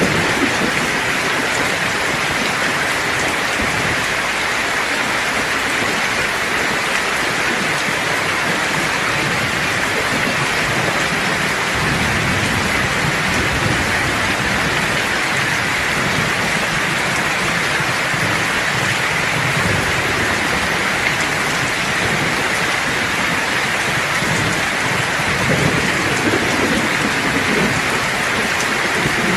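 Steady heavy rain with an even hiss, with low rolls of thunder swelling twice, around the middle and near the end.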